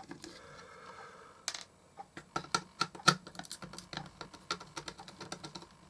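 Light, irregular clicks and taps of small tools and hard plastic parts being handled, several a second, while a clock radio's speaker is worked loose from its plastic case, with a brief scrape about a second and a half in.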